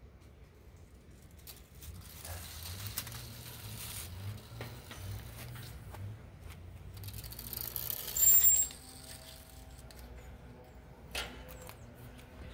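Rustling and handling noise, then a brief, loud, high metallic ring about eight seconds in, like a small piece of metal striking a hard surface, and a smaller click near the end.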